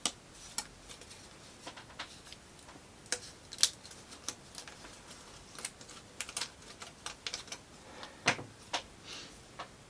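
Laser-cut plywood model parts clicking and tapping as they are handled, in irregular sharp clicks with a few louder knocks among them.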